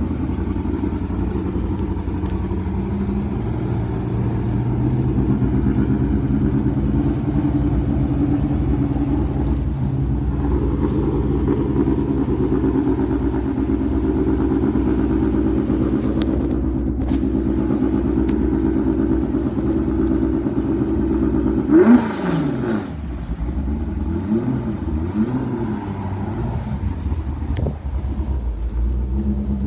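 Ford GT40-style race car's V8 idling steadily while creeping along. About two-thirds of the way in there is one sharp throttle blip, the loudest moment, followed by a few lighter revs.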